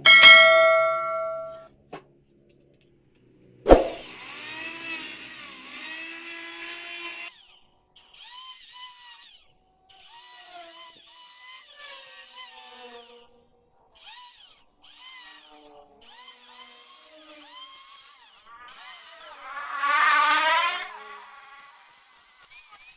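Power drill running in short repeated bursts, its pitch rising and falling as it speeds up and slows. It opens with a ringing strike, with a sharp knock about four seconds in.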